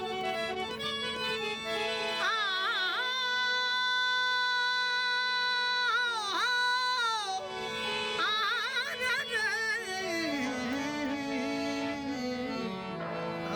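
Live Rajasthani Manganiyar folk music: a singer holds long high notes that break into quick wavering ornaments, over a steady drone.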